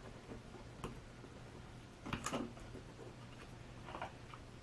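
Faint handling noises of a foam-board fuselage on a workbench: a few soft taps and rustles, the clearest cluster about two seconds in, then a small click near the end as a tape dispenser is picked up.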